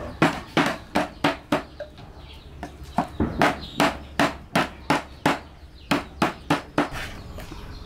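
Knife being driven through food on a wooden board by blows from a wooden stick: a steady run of sharp knocks, about three a second, with a short pause about two seconds in, stopping near the end.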